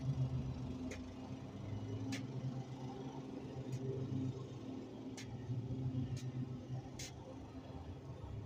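A steady low mechanical hum, like a motor running, with a few short sharp ticks scattered through it.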